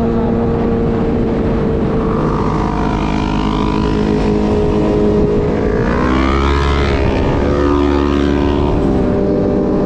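Motorcycle engine running at steady cruising revs, heard from on the bike, with wind rumble. About six seconds in the revs climb briefly and then settle to a lower steady note, with heavier low rumble for a few seconds.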